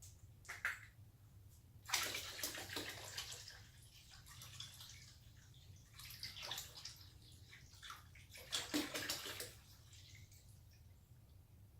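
Water poured from a gallon jug into a partly full water tank, splashing in three bursts: the tank that serves as a CO2 laser's cooling-water reservoir being topped up.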